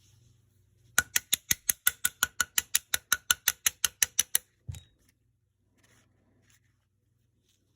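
A fast, even run of about twenty sharp clicks, roughly six a second, then a single dull knock: an Erma LA22's action being worked by hand during reassembly.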